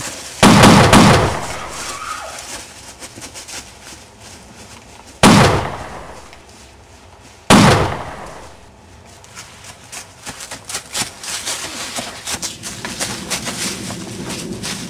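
Three gunshots, each a sharp crack that fades away over a second or so: one right at the start, one about five seconds later and a third two seconds after that. In between and toward the end, footsteps rustle and crunch through dry fallen leaves.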